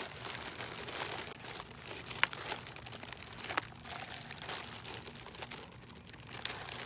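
Plastic mailer bag and a clear plastic bag crinkling and rustling as they are torn open and handled, with two short, sharp clicks about two and three and a half seconds in.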